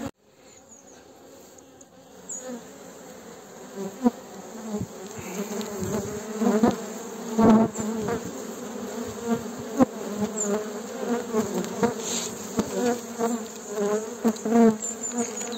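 Honeybees buzzing around an opened hive, starting faint and growing louder over the first several seconds, with a few sharp knocks scattered through.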